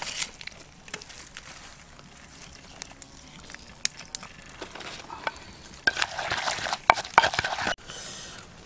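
Food frying in a pan while being stirred, with a sizzling hiss and scattered clicks of the utensil against the pan. The stirring and sizzling get busier about five seconds in.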